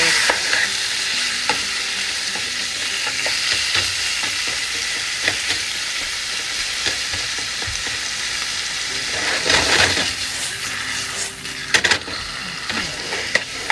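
Freshly added raw chicken breast sizzling in hot oil in a frying pan while a spatula stirs it, with scattered clicks and scrapes of the spatula against the pan. The stirring gets louder about ten seconds in, and a few sharp knocks come near the end.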